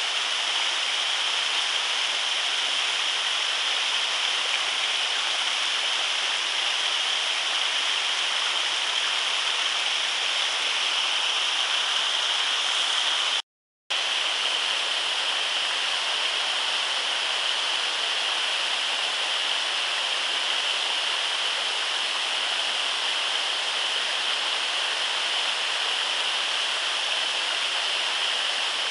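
Mountain torrent rushing steadily, a constant hiss of white water, cut off for a split second about halfway through.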